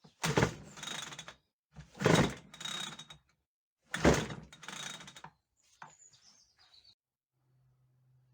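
Recoil starter cord of a Ryobi two-stroke petrol strimmer pulled three times, each pull a sharp rasping rip with a short rattling tail, the engine turning over without catching: it won't start after sitting two years with old fuel in it. A short bird chirp follows, then a faint steady hum.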